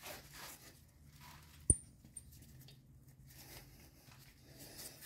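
Faint rustling and handling noise of gloved hands working at a brake caliper's pad pins, with one sharp click and a brief high ring just under two seconds in.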